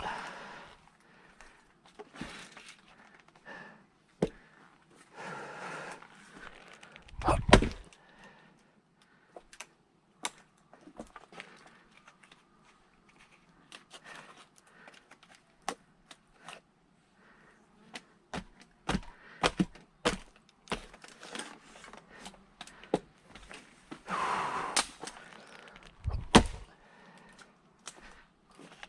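Firewood being split by hand: two heavy strikes into a log, about seven seconds in and near the end, with scattered sharp knocks and cracks of wood between them.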